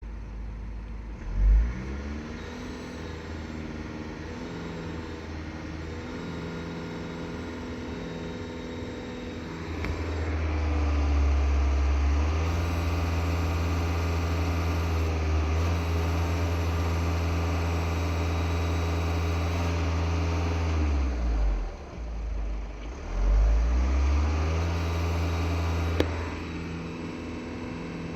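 2.0 TDI common-rail diesel engine with a stage 1 tune, revved from idle several times and held at raised revs for about ten seconds once, with a whistle from the turbocharger gasket: a sign that the gasket is leaking boost.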